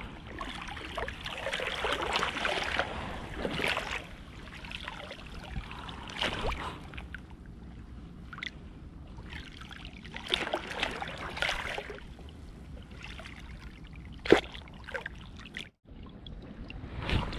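Shallow sea water sloshing and lapping in uneven surges, with a single sharp click about fourteen seconds in.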